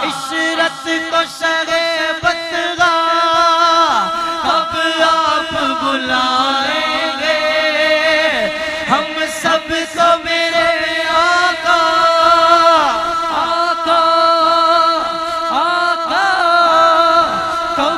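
Men singing a naat, an Urdu devotional hymn, in long ornamented phrases that slide up and down in pitch, over a steady held drone.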